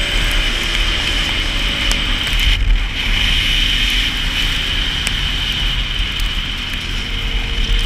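Can-Am Renegade 570 ATV's V-twin engine running steadily while riding at speed, with wind rushing over a helmet-mounted camera's microphone.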